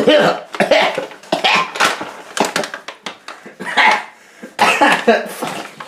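A man's short, loud vocal outbursts without words, about six in a row a second or so apart.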